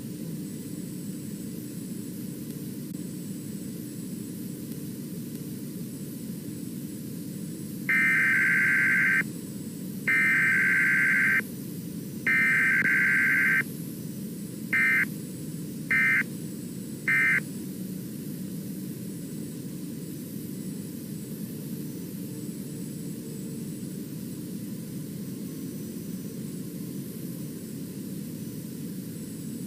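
Radio static with a steady hiss, broken about 8 seconds in by Emergency Alert System SAME data bursts: three header bursts of about a second each, then three short end-of-message bursts. There is no attention tone or voice message between them, the pattern of a Required Weekly Test.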